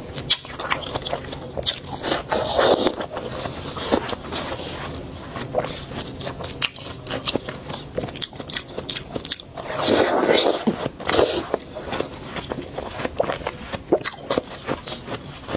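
Watermelon being bitten and chewed: repeated crisp crunches and wet chewing, with louder, longer bites about two and a half seconds in and again around ten seconds.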